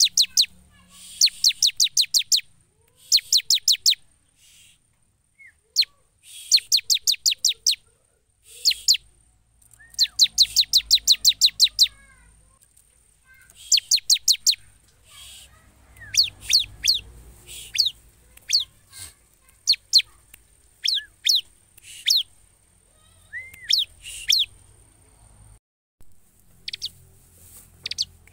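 Ciblek (bar-winged prinia) singing: bursts of rapid, high, repeated chipping notes, about ten a second and a second or two long, separated by short pauses. In the second half the song breaks into shorter phrases and single chirps.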